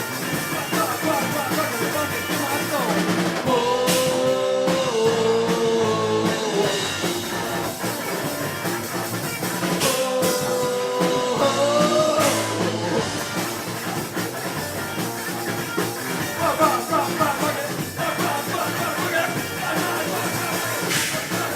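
Live rock-funk band playing: drum kit, electric guitar and bass together, loud and steady. Long held notes stand out twice, about four seconds in and again about ten seconds in.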